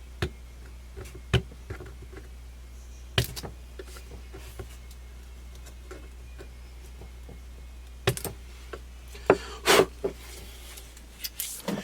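Irregular small clicks and scrapes of a scraper working gunk out of a rifle's screw slots, with a few louder scrapes about 3 s in, about 8 s in and near 10 s, over a steady low hum.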